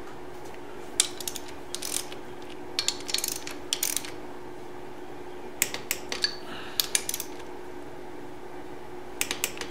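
Ratchet head of a torque wrench clicking in four or five short bursts as the 6 mm bolts of the brake caliper arm mount are tightened to 9 foot-pounds.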